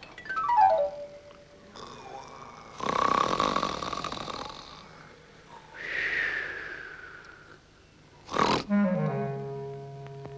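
A quick falling run of musical notes, then a snore: a long rattling breath in, followed by a breath out that slides down in pitch. A short sharp noise comes near the end, and orchestral music starts right after it.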